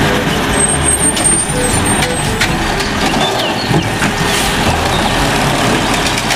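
Garbage truck sound: a truck engine running with a loud, even noise and a few short beeps in the first couple of seconds.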